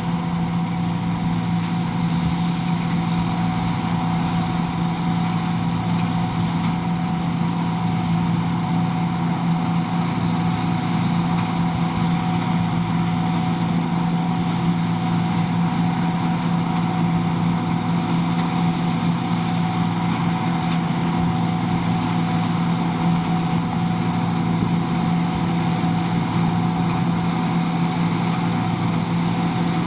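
John Deere 2258 combine harvester running steadily: a constant engine and machinery hum with a few steady whining tones above it.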